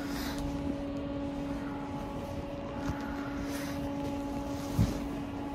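A steady mechanical hum, with light rustling and one dull thump near the end.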